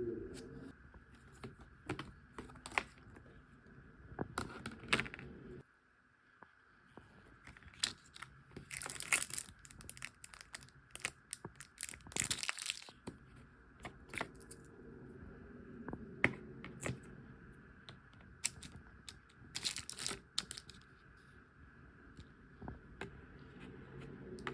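Packaging of a new gouache paint set being opened by hand: paper or plastic tearing and crinkling in short bursts, with scattered clicks and taps.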